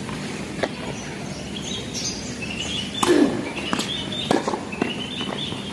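Tennis rally on a hard court: a racket striking the ball and the ball bouncing, heard as a run of sharp knocks, the loudest about three seconds in. Short high chirps come in between.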